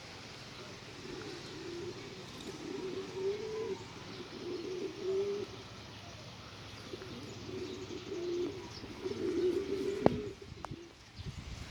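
Domestic pigeons cooing in several low, rolling phrases over a steady hiss of rain, with a sharp click just after the last phrase.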